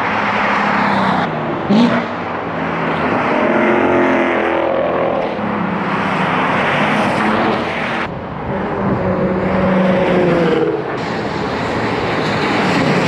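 Sports cars driving on a race track, one after another, their engines rising and falling in pitch as they pass and accelerate.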